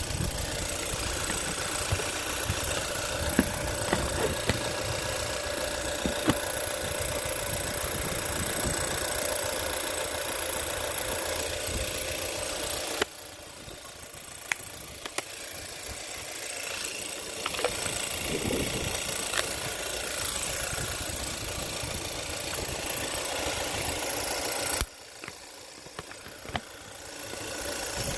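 Car engine running at idle with scattered sharp clicks or knocks, the abnormal noise the owner calls a bad car sound. The sound drops abruptly about halfway through and again near the end, then comes back.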